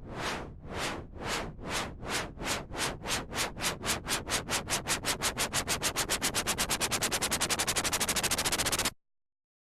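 Synthesized white noise pulsing in repeated swells that speed up steadily, from about two a second to around ten a second, a train-like effect made in FL Studio. It cuts off suddenly near the end.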